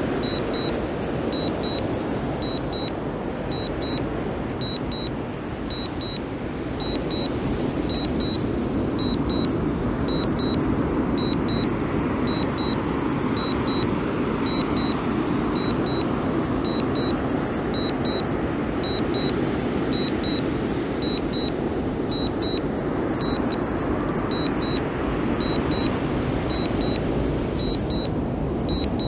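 DJI Mini 2 remote controller sounding its Return-to-Home alert: short high double beeps, about one pair a second, the sign that the drone is on automatic return. Under them runs a steady rushing noise.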